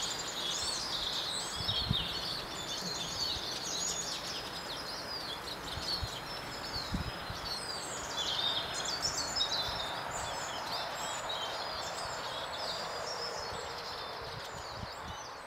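Several small songbirds chirping and trilling over steady outdoor background noise, fading out near the end.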